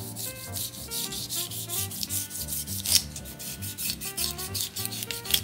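Kitchen knife shaving the fine scales off a yellowtail (buri) belly in the sukibiki manner, a rasping scrape of the blade over skin and scales in quick repeated strokes, several a second.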